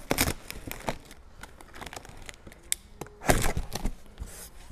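Cardboard box and packaging being handled: scattered crinkles and small knocks, with a louder rustle and thump about three seconds in.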